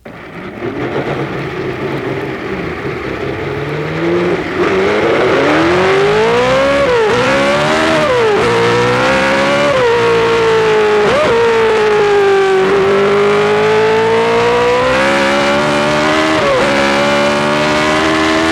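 In-car sound of a BRM V8 Formula One engine accelerating hard, with the whine of cams and timing gears. The pitch climbs and then drops sharply at each upshift, several times in quick succession. In the middle it eases down slowly and then builds again.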